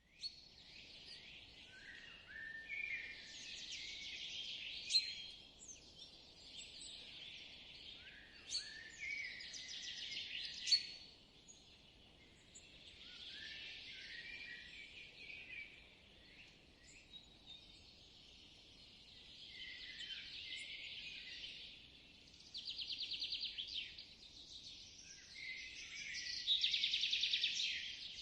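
Spring woodland birdsong: several songbirds singing and calling over one another, with sharp chirps now and then and rapid trills near the end, over a faint steady outdoor hiss.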